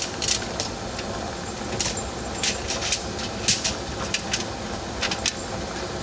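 Clear plastic bag of garlic knots crinkling and rustling as it is handled close to the microphone, in short irregular crackles over a steady low hiss.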